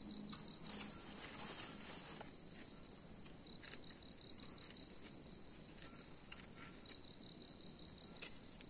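Night chorus of crickets and other insects: a steady high-pitched chirring with a lower, rapidly pulsing trill under it, and a few faint taps.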